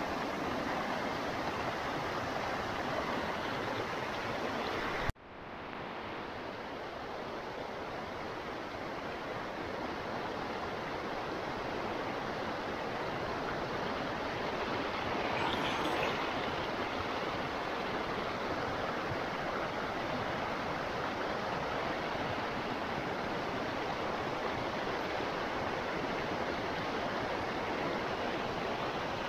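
River water rushing steadily past, an even hiss of flowing water. About five seconds in it cuts out abruptly after a brief click, then fades back up over a few seconds.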